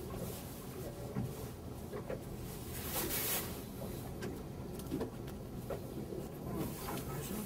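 Steady low rumble and wind noise aboard a small fishing boat on open water, with a few light knocks and a brief hiss about three seconds in.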